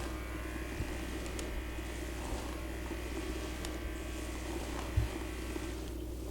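Steady low electric buzz from a small motor running continuously, with a soft thump about five seconds in.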